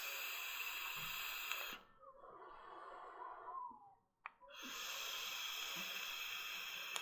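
Two long draws on an EHpro Kelpie rebuildable tank atomizer with a 0.39 ohm coil fired at 45 watts: a steady airy hiss of air pulled through the airflow across the firing coil, each draw lasting about two and a half seconds. Between them a softer breathy exhale, and a single click just before the second draw.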